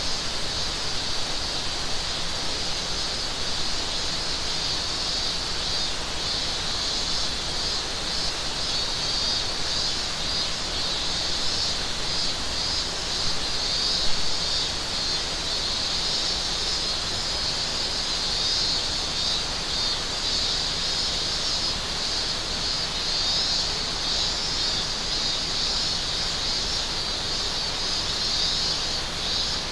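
Steady chorus of cicadas over the constant rush of a mountain river, with one brief click about halfway through.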